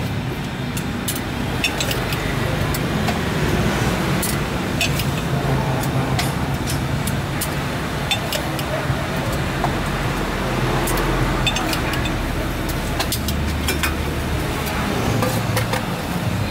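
Busy market street ambience: motor vehicle engines running steadily, with background voices and scattered sharp clicks and clatter.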